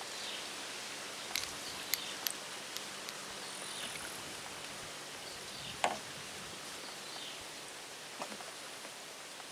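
Steady outdoor ambience over water, an even hiss, with a few faint clicks in the first few seconds and one louder short knock about six seconds in.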